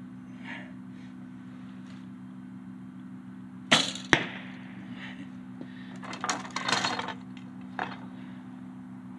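Shot from an old Bear compound bow: a sharp snap of the string on release about four seconds in, followed about half a second later by a second sharp knock. A couple of seconds after that, a short run of light clicks and rattles as a fresh arrow is drawn from a hip quiver.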